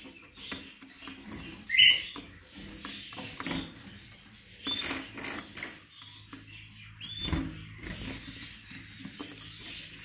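Caged finches, goldfinch × canary hybrids and canaries, giving a few short chirps and call notes, one about two seconds in and several more in the second half, with light clicks and rustles of birds moving about the cage.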